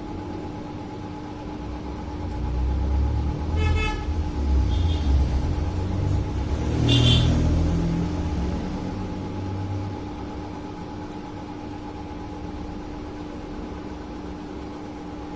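A vehicle going by, its low rumble swelling for several seconds and loudest just past the middle, with a short horn toot a little under four seconds in. A steady electrical hum runs underneath.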